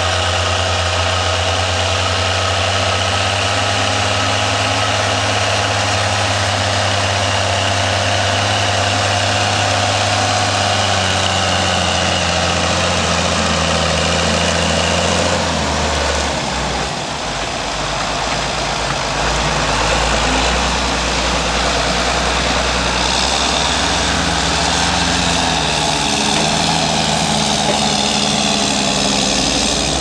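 Diesel engines of two ploughing tractors working under load: a County 1174 pulling a four-furrow reversible plough comes close and passes about halfway through, its engine note dropping suddenly as it goes by. A John Deere 6920 pulling a five-furrow reversible plough then comes up close near the end.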